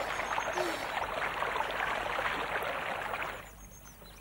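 Water splashing and sloshing steadily as a small figure swims through a pond, with a short chirp-like tone under a second in. The water sound stops about three and a half seconds in, leaving faint high chirps.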